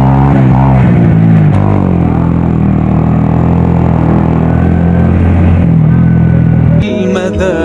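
Small motorcycle engine running steadily while riding along a road. Sung vocal music trails off at the start and cuts back in suddenly near the end.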